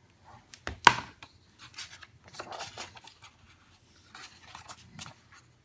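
A hardcover picture book being handled and its front cover opened: a sharp tap or click about a second in, then soft paper and cover rustling and rubbing as the book is opened and pages turned.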